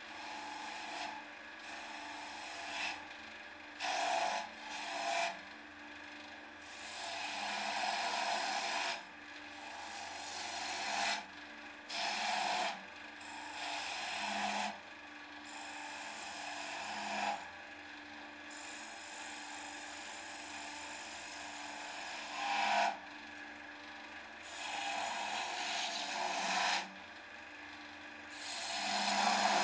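Wood lathe running with a steady motor hum while a hand-held turning tool cuts the end of a spinning wooden box blank, the scraping hiss of the cut coming and going in irregular passes, loudest near the end.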